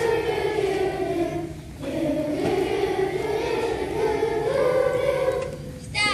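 A children's choir sings a song together in two phrases, with a short break for breath about two seconds in. The singing stops near the end.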